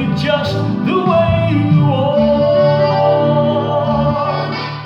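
A man singing to his own electric stage piano accompaniment, holding one long note through the middle.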